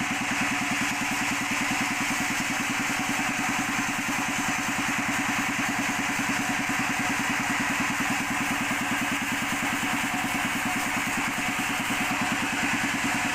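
Sawmill machinery running steadily: an engine with an even, rapid pulsing and a constant hiss over it.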